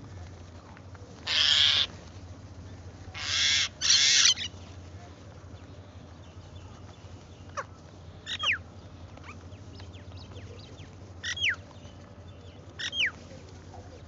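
House crows cawing, three loud harsh caws in the first few seconds, followed by a few short, thin whistled notes that slide sharply downward in pitch from another bird in the flock.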